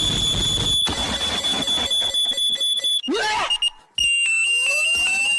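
A steady, high-pitched alarm-like electronic tone held for about three seconds. After a brief break near the middle, a second steady tone at a slightly lower pitch returns, with rising whoops sweeping up beneath it about once a second.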